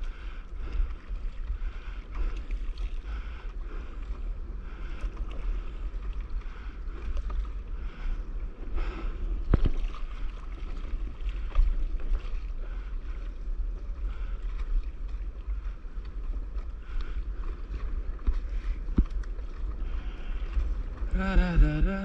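Wind buffeting the microphone over water sloshing around a stand-up paddleboard at sea, with a few sharp knocks. Near the end a wavering pitched tone comes in.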